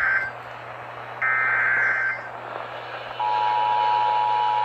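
Emergency Alert System header: the end of one screechy SAME data burst, a second burst about a second in, with radio hiss between, then about three seconds in the steady two-tone EAS attention signal begins, marking the start of a new alert.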